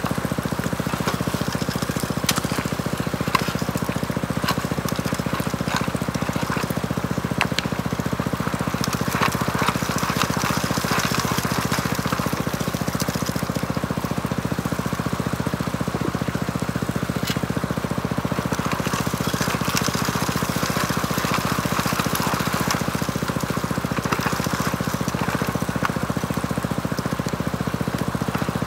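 Small gas-engine water pump running steadily to feed a high banker, with water washing through the sluice and scattered sharp clicks of gravel and rocks.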